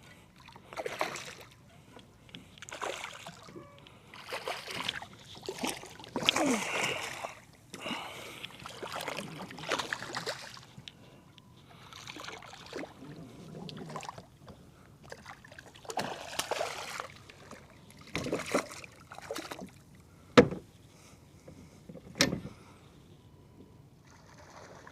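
Water swishing around a kayak in regular strokes, about one every one and a half to two seconds, then two sharp knocks about 20 and 22 seconds in.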